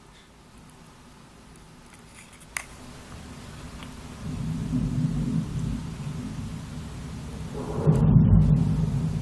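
Thunder rumbling low: a first rumble builds about four seconds in, then a louder peal near the end. A single sharp click comes just before the first rumble.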